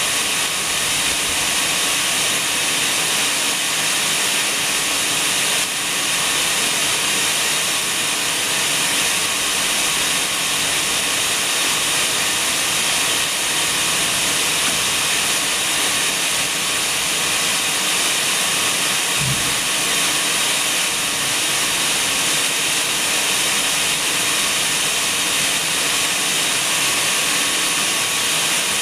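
A steady, even hiss that holds at one level throughout, with no other sound standing out.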